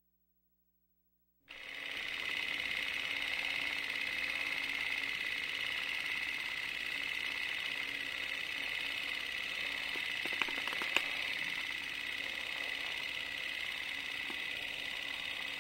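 Film projector running, a steady whirring clatter that starts after a second and a half of silence, with a couple of sharp clicks about two-thirds of the way through.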